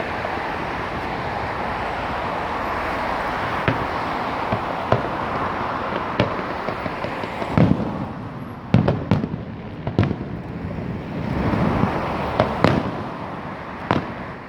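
Fireworks going off: a steady rush of noise, then from about halfway a string of sharp separate bangs with low booming behind them.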